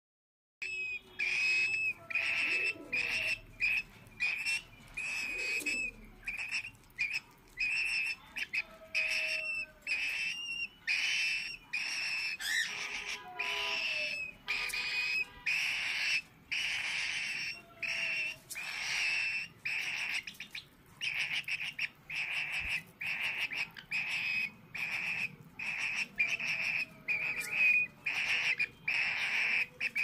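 Cockatiel chick giving raspy food-begging calls, short and repeated about one to two times a second without letting up, while being hand-fed soft food.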